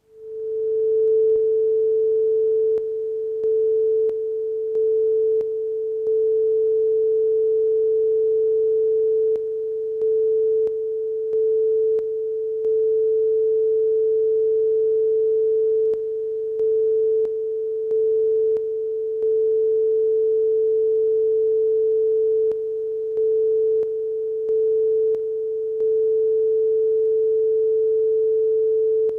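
Stereo audio line-up test tone: a steady, loud, mid-pitched pure tone that fades in at the start. It is broken by brief, regular dips in level, which come in repeating clusters of several every few seconds.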